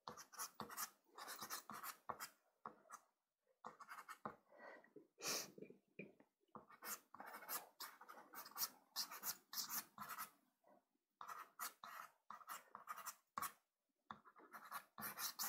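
Soft pastel stick scratching over Pastelmat sanded pastel card, faint, in runs of quick strokes broken by short pauses.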